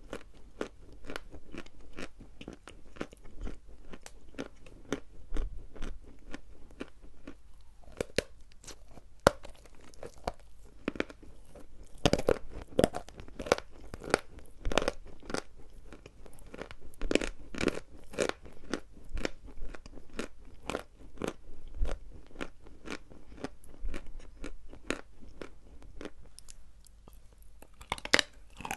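Dry edible chalk being bitten and chewed close to the microphone: a steady run of crisp crunches, a few each second.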